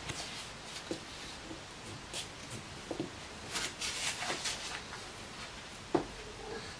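Quiet room with faint, scattered rustles and light taps, and one sharper knock about six seconds in.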